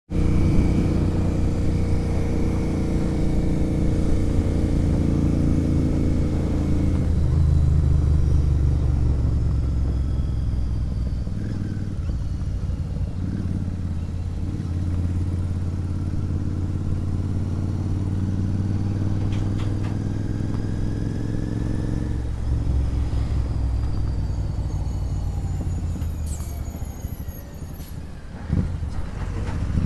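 Royal Enfield Interceptor 650's parallel-twin engine running through a sport exhaust while riding, its note stepping in pitch several times. It eases off near the end, then picks up again.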